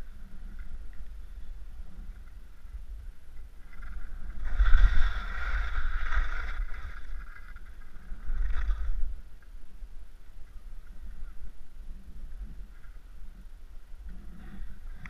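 Skis sliding and scraping over snow, with a loud swish of a turn from about four to seven seconds in and a shorter one near nine seconds. A low wind rumble buffets the camera's microphone.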